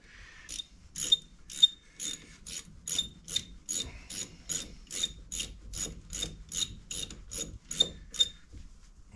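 Hand ratchet wrench clicking steadily, about three clicks a second, each with a slight ring, as the lug nuts are run down on the wheel before torquing.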